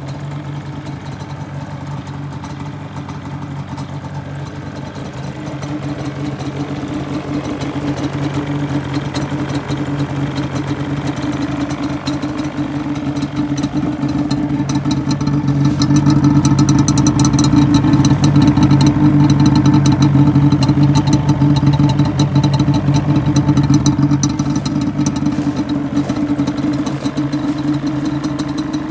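Yamaha Banshee's twin-cylinder two-stroke engine running at a steady idle, growing louder toward the middle.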